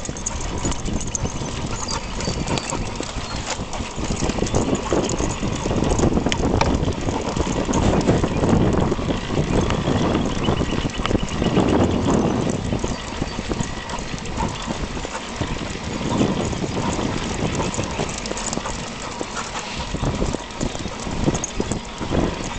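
Wind buffeting the microphone and rolling noise from a moving recumbent bicycle: an uneven low rushing rumble that swells and fades, with scattered clicks.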